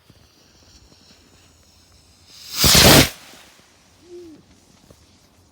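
A firework going off once, about two and a half seconds in: a loud, noisy rush that swells and dies away within a second.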